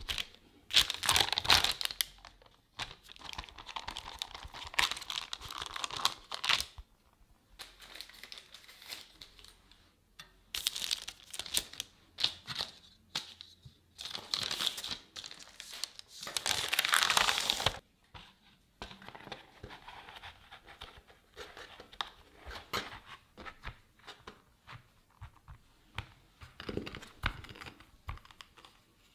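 Parchment paper crinkling and rustling in irregular bursts as hands handle and lift sheets of rolled tart dough cut with a fluted tart ring. Near the end, a wooden rolling pin is rolled over the tart tin's rim to trim the dough.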